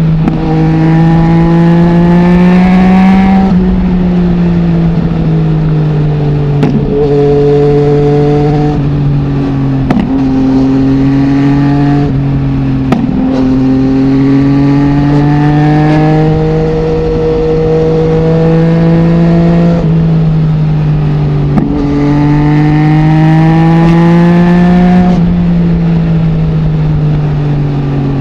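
2020 Yamaha MT-09's three-cylinder engine through a full Akrapovic exhaust with no dB killer, revving up through the gears and easing off several times, with a few short sharp cracks.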